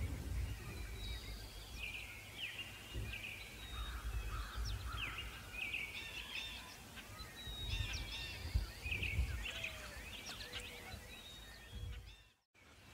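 Many songbirds singing and calling: a busy mix of short chirps, whistles and quick sweeping notes, over a low rumble. The sound cuts out suddenly near the end.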